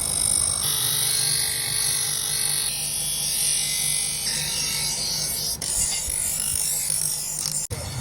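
Steady, hissing metalworking noise from tools working a knife blade, changing abruptly several times as the footage cuts between steps.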